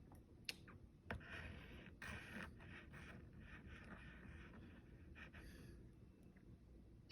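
Faint scratching of a drawing tool stroking across paper, in a series of short strokes with a few light clicks.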